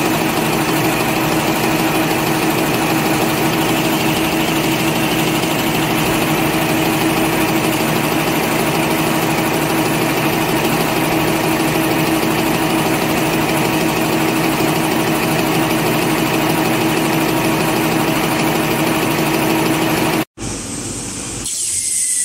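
Napkin paper folding machine running at speed: a steady, dense mechanical running noise with a constant hum. About twenty seconds in it cuts off suddenly, and a quieter hiss follows.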